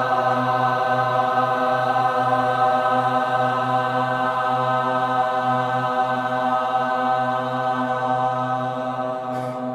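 A man chanting the mantra 'Ram' as one long note held at a steady pitch, fading near the end.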